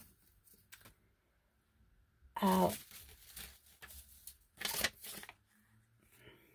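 Handling noise of a clear acrylic stamp block and paper: a sharp click at the start, then rustling and scraping as the inked stamp is pressed onto paper, loudest about five seconds in. A short vocal sound comes about two and a half seconds in.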